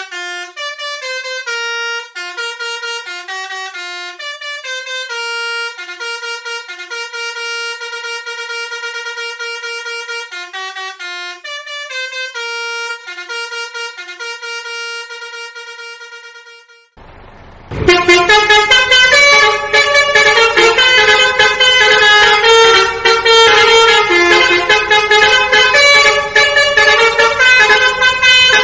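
Multi-tone bus melody horn playing a tune, stepping from note to note in short held tones. About seventeen seconds in it cuts to a louder, rougher recording of a horn sounding several notes at once in quick changing chords.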